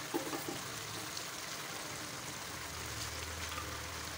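Vermicelli bubbling and sizzling in ghee and water in an aluminium wok over high heat, a steady hiss of boiling. The last of the water is nearly gone, and the noodles are starting to fry. A faint low hum comes in partway through.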